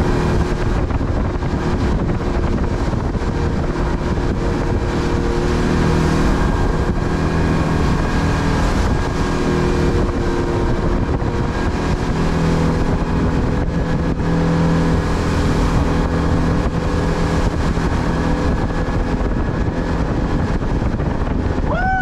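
Motorboat engine running steadily at cruising speed, heard from the helm, with the rush of wind and water along the hull.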